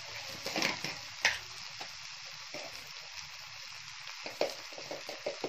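Tomato and onion masala frying in a pan: a steady, soft sizzle, with a couple of short clicks about a second in and a run of small clicks near the end.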